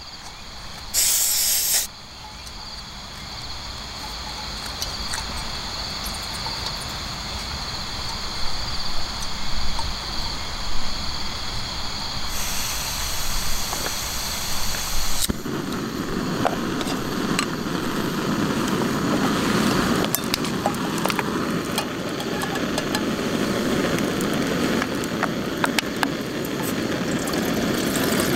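Portable camping gas stove hissing steadily as it heats water, louder and fuller from about halfway through, with a short sharp hiss about a second in and steady insect chirping underneath.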